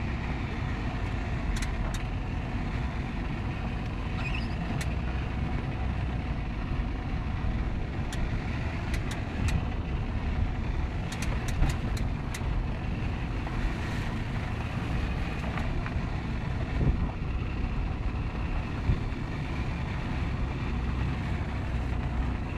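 Suzuki Vitara driving off road: a steady engine and drivetrain rumble, with scattered clicks and knocks through the middle stretch.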